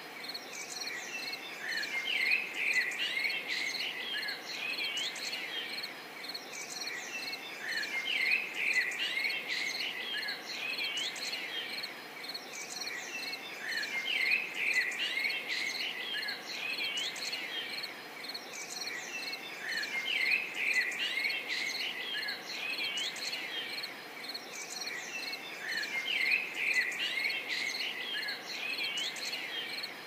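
A looped nature-ambience track: small birds chirping over a steady, pulsing insect trill, the same pattern coming round again about every six seconds.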